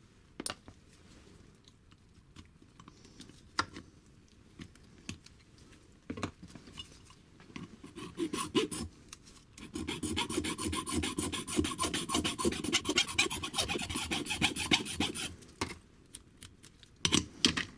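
A hand file (a rasp) rasping down the threaded screw post of a Dell'Orto SI carburettor's filter-lid seat, shortening it so the lid screw can clamp the lid tight against fuel leaks. A few scattered scrapes at first, then fast back-and-forth filing strokes from about ten to fifteen seconds in, and a couple of knocks near the end.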